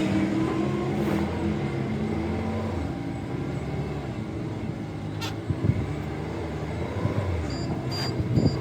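A vehicle engine running, its pitch easing down over the first few seconds and then settling into a rough low rumble, with a few sharp knocks. A quick run of high-pitched beeps comes near the end.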